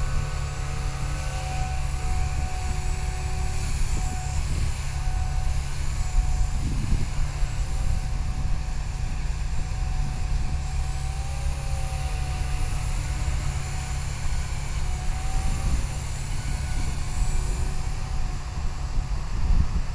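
Blade 180 CFX electric RC helicopter flying at a distance: a thin, steady whine from its motor and rotor that wavers a little in pitch as it manoeuvres, over a louder steady low rumble.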